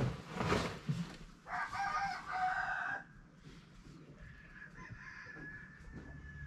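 A rooster crows once, starting about one and a half seconds in and lasting about a second and a half.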